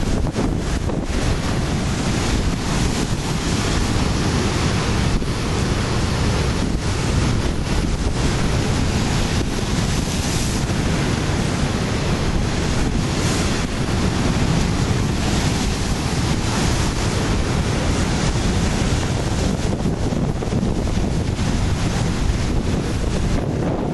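Ocean surf breaking and washing over a rocky shoreline, a steady rush, mixed with strong wind buffeting on the microphone.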